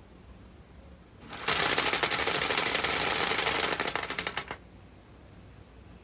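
Split-flap display modules of a stepper-driven flip clock flipping their cards together: a fast, dense run of flap clacks starting about a second in and lasting about three seconds, thinning to a few separate clicks before it stops.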